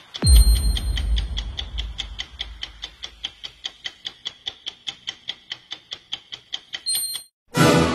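Clock ticking fast and evenly, about four ticks a second, with a deep boom just after the start that fades over a couple of seconds. The ticking stops shortly before the end, and after a brief gap a loud sound falling in pitch begins.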